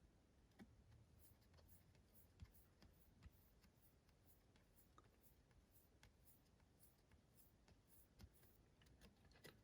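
Near silence with faint small clicks and rubs of trading cards being handled.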